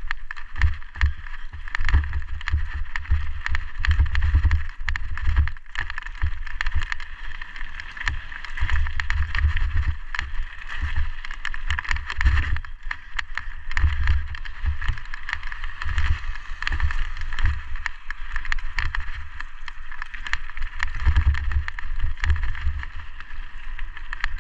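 Mountain bike riding fast downhill on a gravel and dirt trail, heard from a helmet-mounted camera: wind buffeting the microphone in uneven low rumbles, over a steady hiss of tyres on the loose surface and frequent small clicks and rattles from the bike over bumps.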